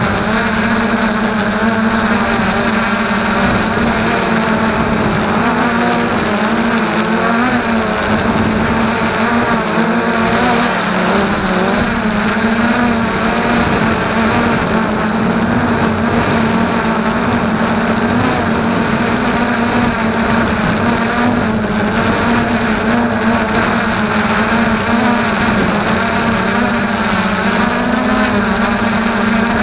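Quadcopter's electric motors and propellers buzzing steadily in flight, picked up close by the onboard camera's microphone; the pitch rises and falls slightly now and then.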